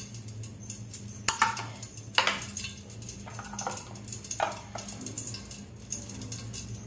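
Oil and a spoonful of ghee heating in a large aluminium pot, giving a few sharp pops about a second and a half, two seconds and four and a half seconds in, over a steady low hum.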